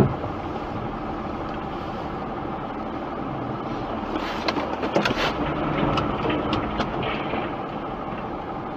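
Steady engine and road noise of a car driving on a snow-covered road, heard from inside the cabin, with a scatter of light clicks around the middle.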